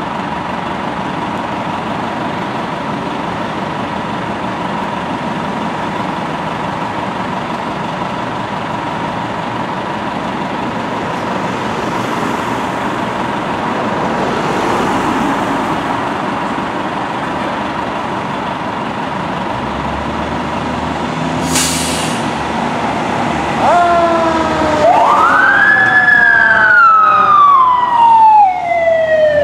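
A 1998 Pierce Arrow fire truck's siren starts about 24 seconds in, winding up and down in loud wails as the truck pulls out on an emergency response. Before it there is a steady background hum with a faint steady tone, a low engine rumble from about 20 seconds, and a short hiss about 21 seconds in.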